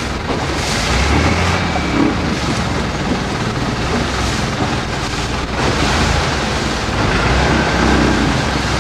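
Wind buffeting the microphone over a steady rush of water, with a few swells in loudness.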